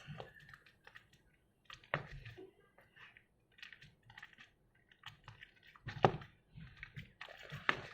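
A spoon stirring sticky fluffy slime just activated with contact lens solution: soft wet squishes with scattered clicks of the spoon, the sharpest about two seconds in and again about six seconds in.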